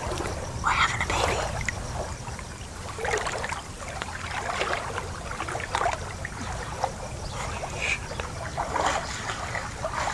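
Swimming-pool water sloshing and lapping in irregular splashes as people move through it chest-deep.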